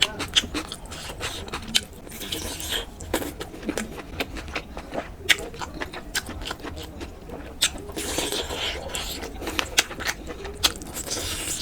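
Close-miked eating: wet chewing and lip smacking, many sharp irregular mouth clicks, with a few short hissing stretches.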